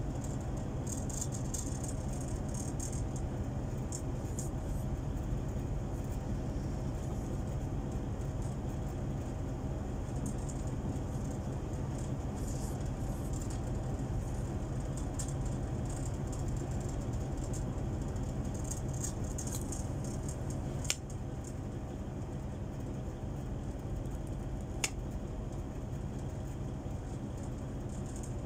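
A steady low background rumble, over which a plastic smartphone cover is handled: faint crackly rustles now and then, and two sharp clicks in the second half.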